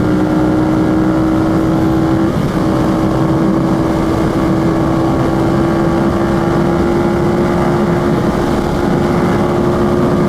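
Yamaha FZ-07 parallel-twin engine running at a steady cruise, with wind rushing over the helmet microphone. The engine note breaks briefly about two seconds in, then holds and climbs slowly.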